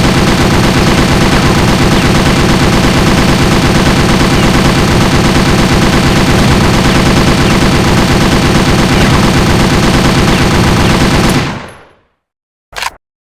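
M60 machine gun sound effect firing one long full-auto burst of rapid, even shots. It stops about eleven and a half seconds in with a short fading tail, followed by a couple of sharp mechanical clicks near the end.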